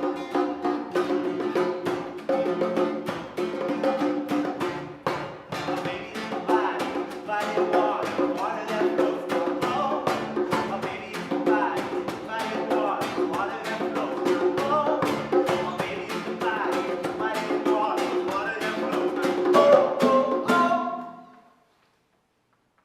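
Band music with plucked strings, drums keeping a steady beat, and singing; it fades out quickly about 21 seconds in.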